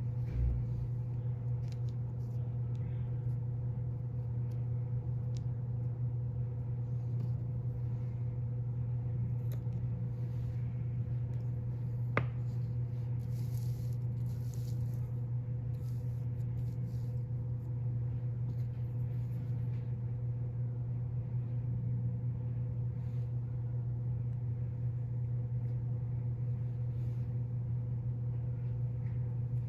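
A steady low hum, like a fan or other machine running in the room, with faint soft clicks and taps from hands pressing and placing clay coils on a plastic-covered board; a low thump just after the start and one sharper click about twelve seconds in.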